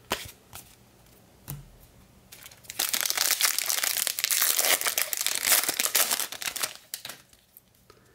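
A baseball card pack's wrapper being torn open and crinkled for about four seconds, after a few light clicks of cards being handled.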